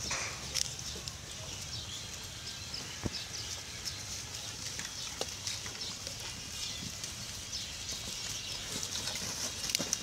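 A herd of pigs foraging in grass and plastic litter: many small scattered rustles and clicks from rooting and feeding over a steady hiss.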